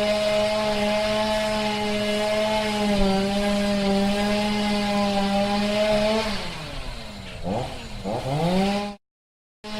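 Two-stroke chainsaw engine running at steady high revs, then the throttle is let off and the revs fall, followed by two quick blips back up. It cuts out abruptly near the end and comes back at high revs.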